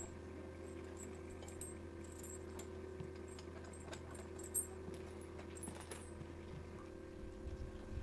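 Faint metallic clinking of a draught horse's harness and chain, a few light clicks with one sharper click about four and a half seconds in, over a steady low electrical hum.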